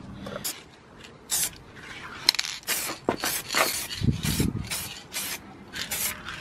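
Aerosol spray paint can hissing out green paint in a quick series of about ten short bursts.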